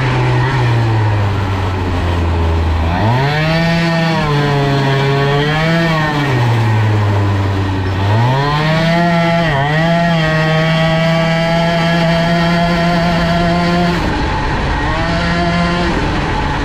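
Small two-stroke moped engine with a Polini cylinder and BOOST cylinder head running hard on the move. Its revs fall and climb back up twice in the first half, then hold high and steady for several seconds, with a brief change near the end.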